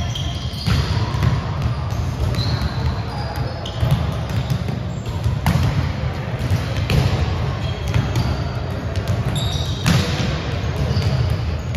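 Volleyballs being struck and bouncing on a gym floor during practice, a sharp smack every second or few, with voices in the background.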